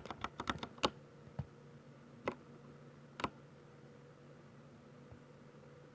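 Keystrokes on a 60% mechanical keyboard with silver switches: a quick run of about seven key presses, then three single presses spaced about a second apart.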